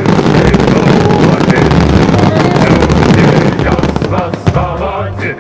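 Dense barrage of fireworks: many shells bursting and crackling at once in one loud continuous din, over music with a pulsing bass line. The barrage thins about four seconds in, leaving the music.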